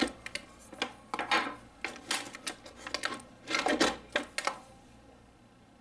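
Plastic packaging insert and crossbow parts being handled and lifted out of a cardboard box: a run of clicks, plastic crackles and light knocks that stops about four and a half seconds in.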